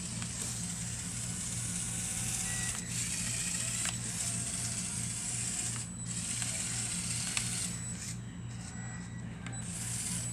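Small electric motors of a LEGO Technic RC forklift running its plastic gear trains with a high whirr. The whirr starts and stops several times in stretches of one to two seconds as functions are driven. A steady low hum sits under it throughout.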